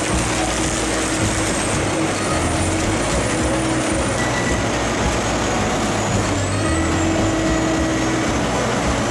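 Heavy diesel wood-processing machine running steadily under load. A dense grinding noise sits over the engine's steady drone, with a thin high whine that wavers in pitch.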